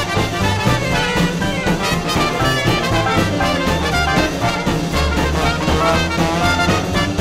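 Background music led by brass instruments, in a swing or jazz style with a steady beat.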